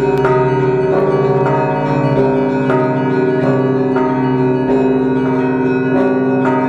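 Orthodox monastery church bells of the Pochaiv Lavra ringing together: several bells struck in a quick, repeating pattern, their tones ringing on between strikes.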